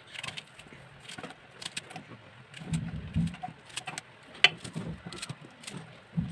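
Small red onions being cut with a knife held over an aluminium pot: crisp cutting clicks, with pieces dropping onto the raw chicken and into the pot, giving a few dull thuds about three and five seconds in.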